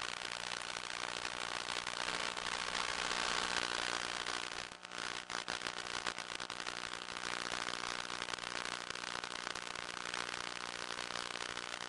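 Electric motor and propeller of an FPV RC plane running at steady throttle, heard through the onboard microphone as a steady hum mixed with wind rush, with a brief dip in level about five seconds in.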